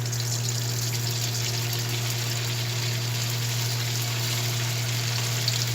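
Chicken cheese balls deep-frying in hot oil: a steady sizzle, with a constant low hum underneath.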